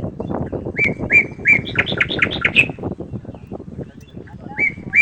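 A songbird singing the same short phrase twice, over a steady rough background noise. Each phrase is a few even whistled notes followed by a quick run of sharper, higher notes.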